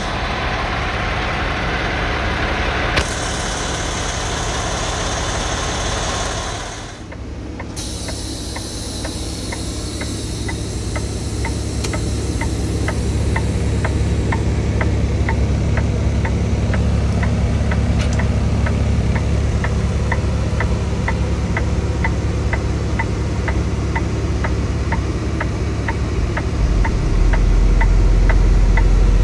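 Semi truck's diesel engine idling, heard first beside the truck and then from inside the cab, with a steady regular ticking about twice a second from around ten seconds in. Near the end the low engine rumble grows louder.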